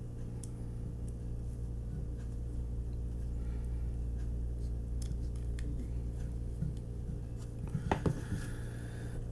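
Light clicks and taps of small metal and plastic parts as a diecast toy car's base is fitted back on, with a quick run of sharper clicks about eight seconds in, over a steady low electrical hum.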